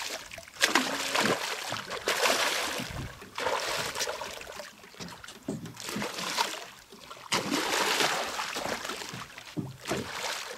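Hooked Papuan black bass thrashing at the surface beside the boat, in repeated bursts of splashing about a second long.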